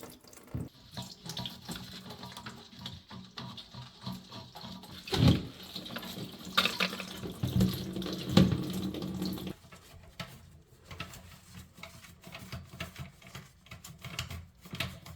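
Leftover toilet tank water running and splashing out as the fill valve's lock nut is unscrewed. The flow stops about nine seconds in, leaving light clicks and knocks.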